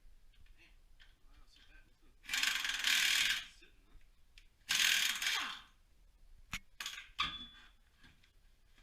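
Ratchet wrench spinning fasteners on the car's rear axle in two runs of about a second each, followed by a few short metallic clicks and knocks.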